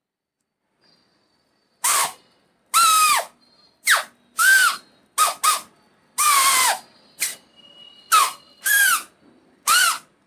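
Folded paper whistle with two triangular holes, blown by mouth so the paper vibrates: about eleven short, high-pitched squawks, each sagging in pitch as it ends.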